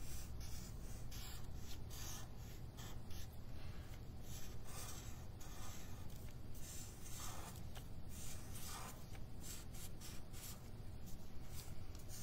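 Felt-tip marker drawn across paper in a rapid series of short strokes, outlining a zigzag shape.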